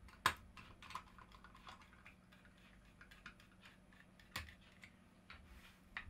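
Light plastic clicks and taps as a small plastic burglar-alarm surface contact is handled, with a screwdriver tip against its casing. Two sharper clicks come about a quarter second in and at about four and a half seconds.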